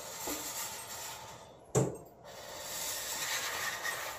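Rushing, hissing airflow driving smoke through a homemade cardboard wind tunnel, broken about halfway by a sharp knock and a brief pause before the hiss picks up again.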